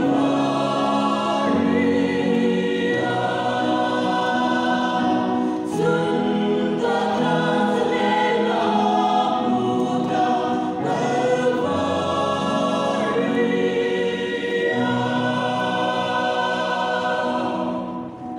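Mixed choir of men and women singing a gospel hymn in harmony, with long held chords; the singing dies down near the end.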